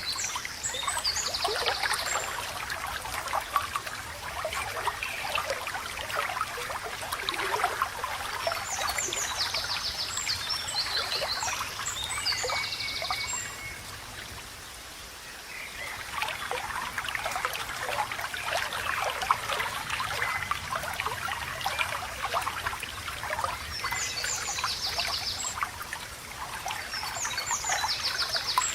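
Small stream babbling and trickling, with songbirds singing short, rapid trilled phrases now and then. The water briefly dies down about halfway through, then picks up again.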